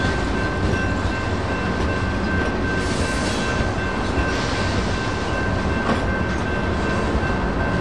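Freight train cars rolling past over the crossing with a steady rumble of wheels on rail, while the crossing's electronic bell rings on. A brighter hiss rises for about a second near the middle.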